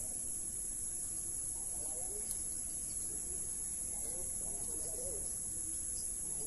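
Steady high-pitched drone of field insects, with faint wavering calls underneath, strongest about two and five seconds in.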